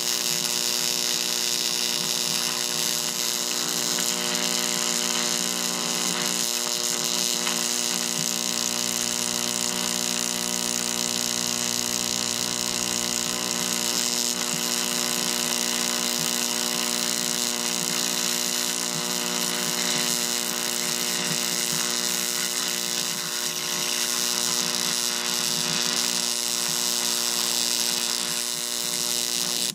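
12,000-volt electric arcs buzzing and sizzling steadily where the electrodes touch the ends of a battery, over a steady electrical hum.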